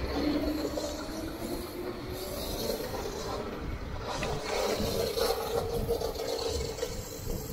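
Electric e-bike motor whining, its pitch rising slowly as the bike gains speed, over a steady low rush of wind on the microphone.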